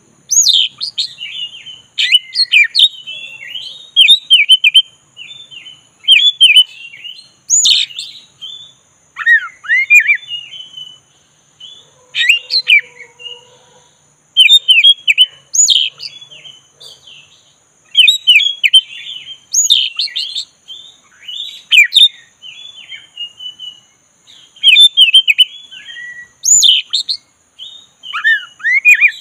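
Black-breasted Oriental magpie-robin (kacer dada hitam) singing a long, varied song of rapid chirps, trills and upward-sweeping whistles, in loud phrases broken by short pauses.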